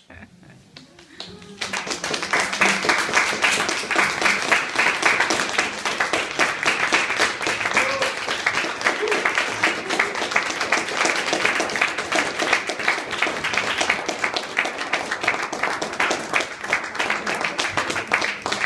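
Audience breaking into applause about a second and a half in: dense, steady clapping of many hands.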